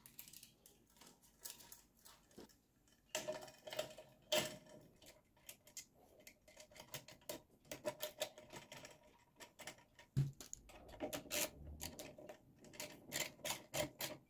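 Irregular light clicks and taps of small parts being handled as a plastic spark guard and its screws are fitted to a bench grinder, with a slightly louder tap about four seconds in and a dull knock near ten seconds.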